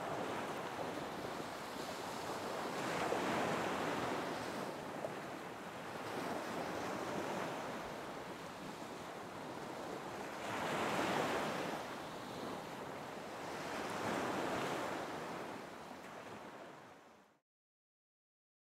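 Ocean surf breaking on a shore, the wash of the waves swelling and easing in slow surges, then fading out near the end.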